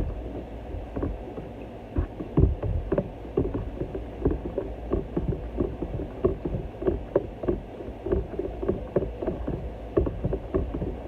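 Drink being mixed in a jug: liquid sloshing, with a quick, irregular run of knocks against the container starting about two seconds in.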